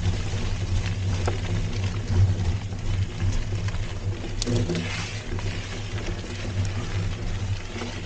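Polygon Xtrada 7 mountain bike rolling over a dirt trail: a steady low rumble from the tyres and frame, with scattered clicks and rattles.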